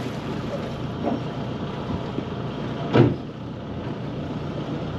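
A few dull thumps on a catamaran's deck as someone moves about and sits down, the loudest about three seconds in, over a steady low rumble.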